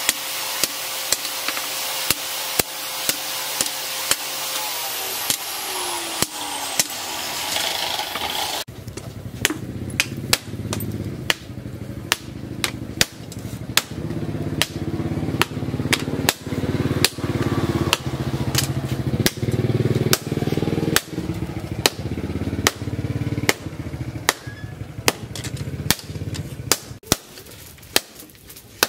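Hammer blows on steel at the anvil, about one or two a second, while a machine runs behind them: a loud hiss that winds down and stops about nine seconds in, then a low hum that fades near the end.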